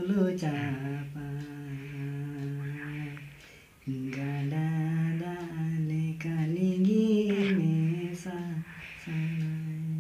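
A man singing a slow Santali song unaccompanied, in long held notes, pausing for breath about four seconds in.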